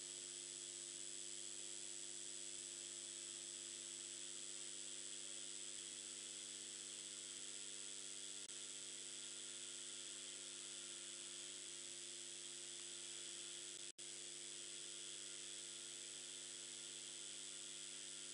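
Steady electrical hum with hiss and a faint high whine: the recording's background noise with no one speaking. It drops out for an instant about fourteen seconds in.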